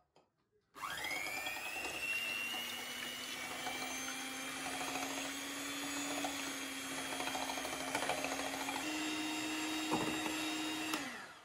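Electric hand mixer whipping egg whites to stiff peaks in a glass bowl. The motor starts about a second in with a rising whine, runs at a steady pitch, steps up to a higher pitch near the end, then winds down and stops.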